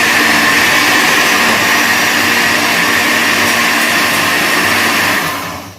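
Blender running at a steady full speed, blending onions and scotch bonnet peppers with a little water, then winding down near the end.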